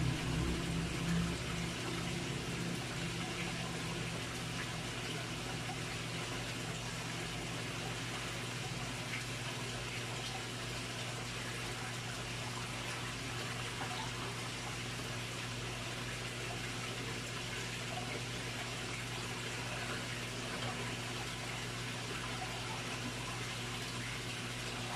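Steady running water in a fish pond, with a constant low hum underneath; a deeper hum drops away about two seconds in.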